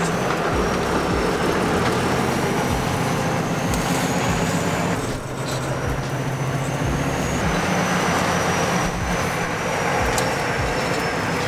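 Cab noise of a 2006 International Eagle 9400i semi truck on the move: a steady diesel engine drone under road noise, with a brief dip and a change in the engine note about five seconds in.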